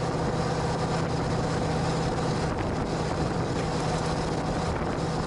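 Steady rush of wind and road noise in the open bed of a pickup truck towing a travel trailer at speed, with the truck's low drone underneath.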